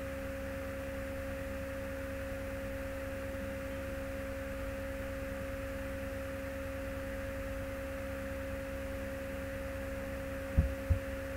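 Steady electrical hum: a constant high whine over a low buzz and hiss. Two short soft thumps come near the end.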